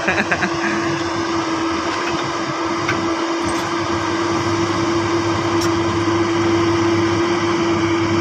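Diesel engines of heavy hydraulic excavators running steadily at close range, a constant high whine over the engine drone. A brief rattle at the very start.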